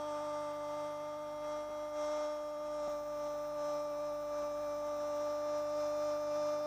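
A steady droning tone with overtones, holding one pitch without change.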